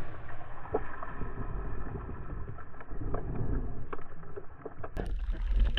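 Muffled underwater sound of a snorkeller's camera: low rumbling water movement with scattered faint ticks and nothing above a dull mid-range. About five seconds in, the sound turns suddenly bright and splashy as the camera comes up out of the water.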